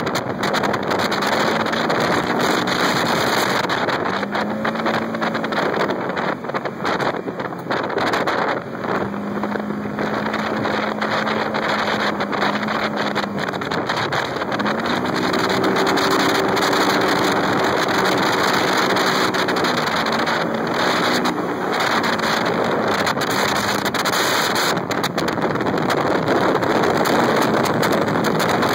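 Polaris RZR 900 XP side-by-side's twin-cylinder engine running under load on sand, its pitch rising and falling several times as the throttle changes, under heavy wind noise on the microphone.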